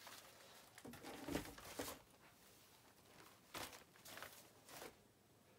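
Faint rustling and soft taps of woven plaid shopping bags being handled and laid down, in a few short spells.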